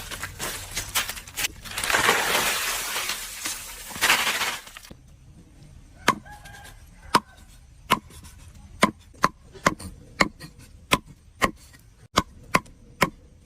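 A few seconds of loud noisy hiss, then a knife or cleaver chopping on a wooden cutting board: about a dozen sharp, irregularly spaced knocks, each with a short ring.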